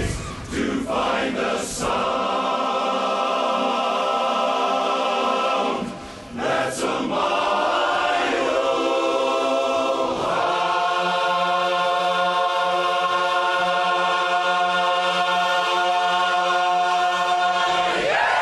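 Large men's barbershop chorus singing a cappella in close harmony. It ends the song on one long sustained chord, held for the last eight seconds or so.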